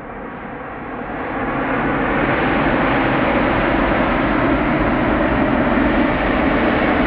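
Rolls-Royce Trent XWB engines of an Airbus A350 on its landing roll: a jet roar that swells over the first two seconds and then holds steady and loud as the airliner rolls by.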